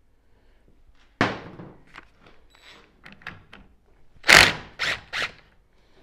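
Metal knocks and clicks of a socket and hand tools against a tie rod clamped in a bench vise, as the castle nut is worked off the old ball joint stud. There is a sharp knock about a second in, a few lighter clicks, then the loudest knock about four seconds in, quickly followed by two more.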